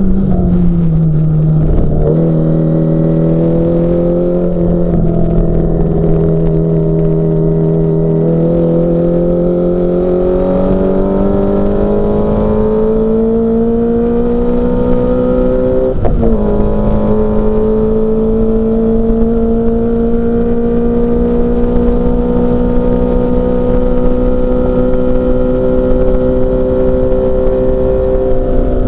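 Group N Mini Cooper S race car's engine running hard and continuously. Its note dips just after the start, climbs slowly for a long stretch, drops sharply about halfway through at a gear change, then climbs slowly again under load.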